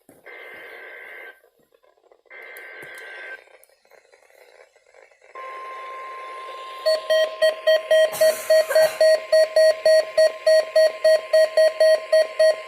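NOAA Weather Radio emergency-alert (EAS/SAME) header: two data bursts of about a second each, sounding as a two-pitch buzzing warble. About five seconds in a steady single alert tone starts, and from about seven seconds in a weather-radio receiver's alarm beeps loudly over it, about three beeps a second.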